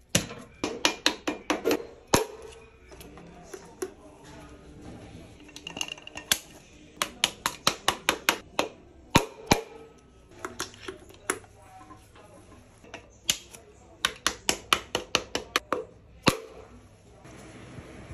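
Runs of quick, sharp taps, several a second, come in repeated bursts. They are a hammer handle knocking a piston down through a ring compressor into a bore of a Skoda 1.2 three-cylinder engine block.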